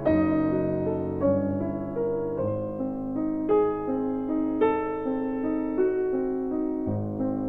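Slow, gentle piano music, with sustained notes and chords changing about once a second.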